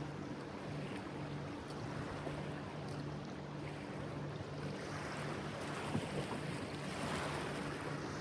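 River water and wind making a steady rushing noise that swells a little in the second half, over a faint, low, steady hum.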